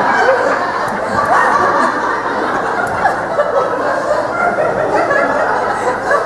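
Theatre audience laughing at a punchline, many people at once; the laughter holds steady.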